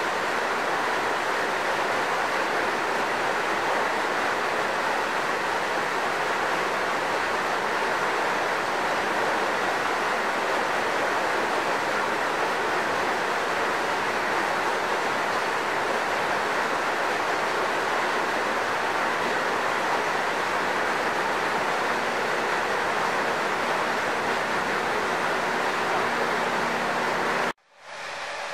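Steady rush of flowing water in a shallow muddy stream, an even, unbroken hiss that cuts off suddenly near the end.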